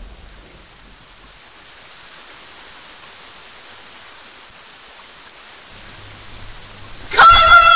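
Steady rain, a soundtrack sound effect, hissing evenly. Near the end a loud high-pitched cry breaks in, holds briefly and falls in pitch.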